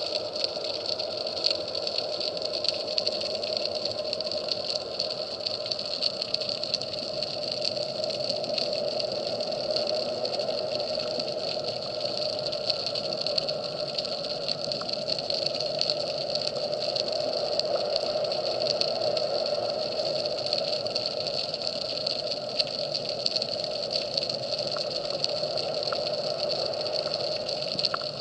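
Steady underwater noise through a camera housing: a continuous drone with many fine crackling clicks.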